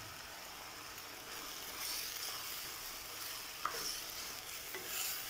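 Pork pieces sizzling in oil in an earthenware clay pot. A wooden spoon starts stirring them about two seconds in, and the sizzle grows louder, with one light knock of the spoon.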